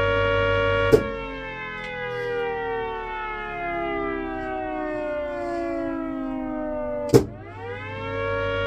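A siren sounding a steady chord of several tones. About a second in there is a sharp click and the pitch slowly falls for about six seconds. A second click comes about seven seconds in, and the pitch quickly rises back to the steady chord.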